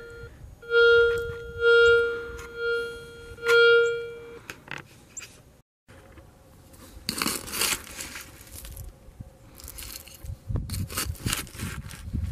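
Garrett Ace 250 metal detector sounding its target tone, a steady mid-pitched beep repeated four times in the first four seconds as the coil passes over buried metal. Later, a hand digging tool scraping and crunching into loose shale gravel.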